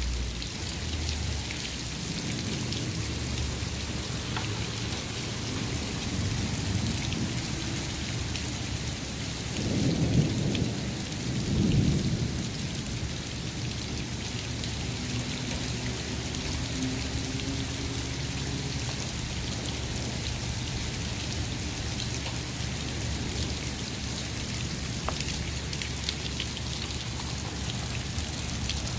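Heavy rain mixed with small hail falling on pavement and lawn, a steady hiss. A low rumble of thunder swells twice about ten seconds in.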